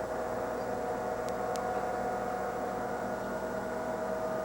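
Steady, even electrical hum with a low hiss: room tone.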